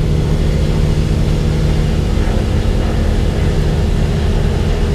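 Steady low drone of piston aircraft engines running, holding one pitch throughout.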